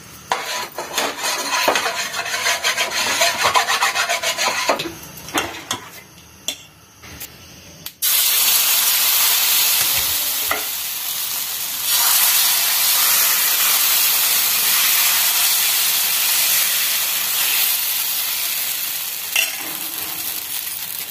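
Thin rava-maida dosa batter sizzling on a hot nonstick tawa. Irregular crackling and spitting come first as the batter goes on, then about eight seconds in a steady, louder sizzle takes over abruptly as the dosa fries.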